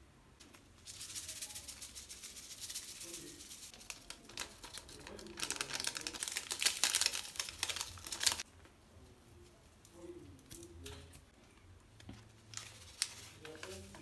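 A spice shaker bottle shaken hard over a pot of rice: a dense rattling hiss for about seven seconds that stops suddenly. After it come the lighter crinkles and clicks of a plastic seasoning sachet being handled and squeezed out.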